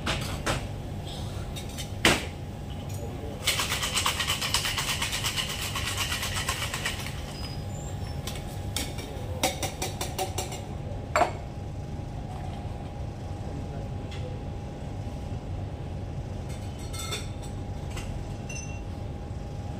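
Ice rattling hard in a metal cocktail shaker for a few seconds, with a sharp metallic knock shortly before and another a few seconds after, as the shaker tins are closed and knocked apart.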